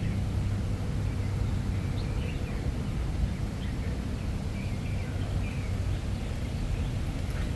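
Outdoor park ambience: a steady low rumble with faint, short bird chirps scattered through it.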